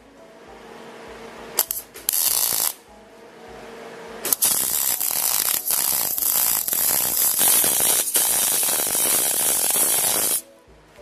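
Electric arc welding on square steel tubing: a short burst of welding crackle about two seconds in, then a continuous crackling weld run of about six seconds that cuts off sharply near the end.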